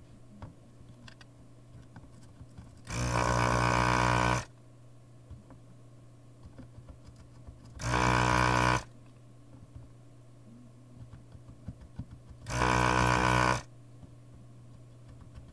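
Electric desoldering gun's built-in vacuum pump running in three short buzzing bursts, each about one to one and a half seconds long, sucking molten solder from the pins of a chip socket.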